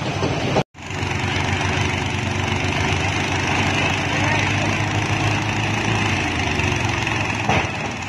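Small petrol engine driving a drum-type rice threshing machine, running steadily under load, with the dense rattle and swish of rice stalks being beaten in the drum. The sound drops out for a split second a little under a second in.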